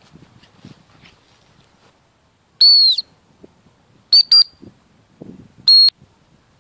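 Gundog whistle blown as commands to a springer spaniel pup: a high, steady blast of about half a second, two quick short pips a second later, then another short blast. Faint rustling of footsteps in grass between the blasts.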